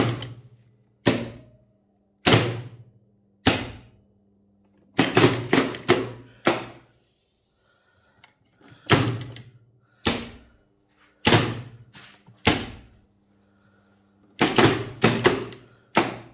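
Relays in a crane control cabinet clacking as a PLC switches its outputs on and off: sharp clicks, some single and some in quick runs of three or four, repeating every second or two over a faint steady electrical hum.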